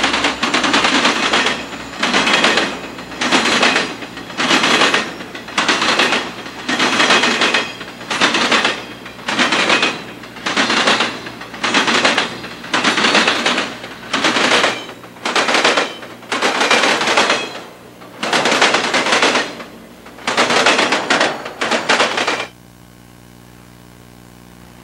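Santa Fe piggyback freight train passing close by, its wheels clattering over the rail joints in a steady rhythm of loud rushes, about one every three quarters of a second, the spacing widening somewhat later on. Near the end the sound drops abruptly to a faint low hum.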